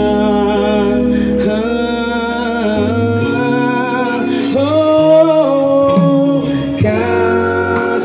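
Live band music: a slow pop ballad on electric bass, electric guitar and electronic drum pads, with the melody held in long notes over a steady bass line.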